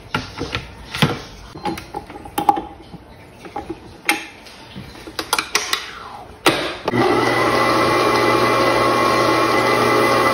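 Metal clicks and clunks as a stainless steel bowl and dough hook are fitted onto a tilt-head stand mixer, then about seven seconds in the mixer's electric motor starts and runs steadily, kneading flour and water into pizza dough.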